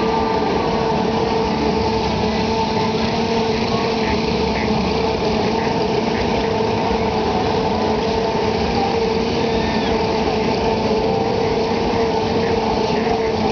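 Fairground machinery running: a steady engine drone with a constant hum that holds one pitch throughout, under faint crowd voices.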